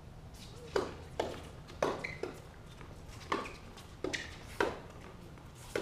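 Tennis ball being struck by rackets and bouncing on a hard court during a doubles rally: a run of about eight sharp pops, unevenly spaced, roughly half a second to a second apart.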